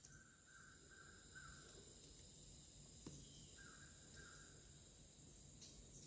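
Near silence: faint room tone with a few faint short chirps.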